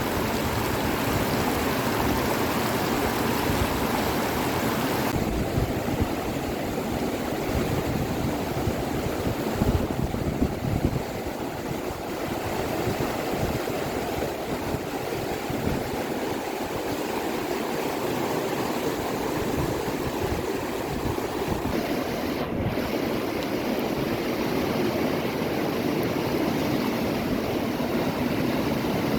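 Steady rushing of water with wind buffeting the microphone; the hiss turns a little duller about five seconds in.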